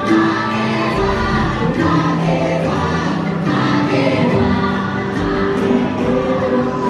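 Music with a choir singing long, layered held notes: the chanting soundtrack played over the speakers in a boat dark ride.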